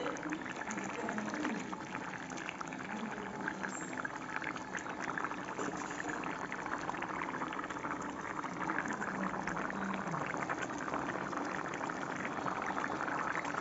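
Thick broiler chicken and potato curry boiling in a karahi, the gravy bubbling and popping steadily.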